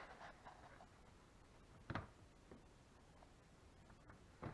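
Near silence: room tone, with a single soft knock about two seconds in and a few more knocks near the end.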